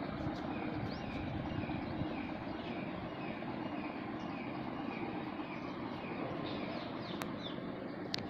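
Outdoor ambience: a bird repeats a short falling call about two to three times a second over a steady low rumble. A few higher chirps and two sharp clicks come near the end.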